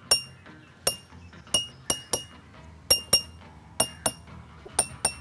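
Water-filled drinking glasses struck one after another with a metal spoon, about eleven ringing clinks, some in quick pairs. Each glass rings at its own pitch, going from low to high.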